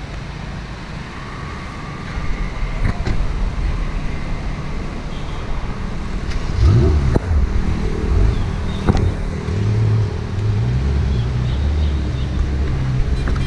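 Car engines in street traffic; about seven seconds in an engine note rises briefly, then a deep engine runs steadily and louder.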